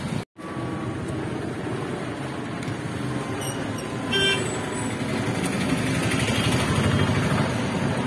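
Urban road traffic noise from passing vehicles, with a short horn toot about four seconds in. The sound cuts out for a moment just after the start.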